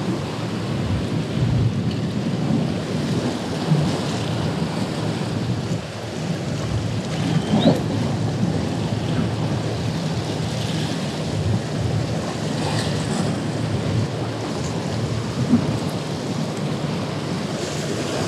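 Ocean surf washing against the boulders of a rock jetty, a steady rush, with wind rumbling on the microphone.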